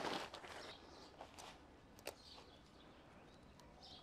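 Nylon tent fabric rustling as it is spread out on a groundsheet, dying away within the first second, then faint outdoor quiet with a few small clicks and faint bird chirps.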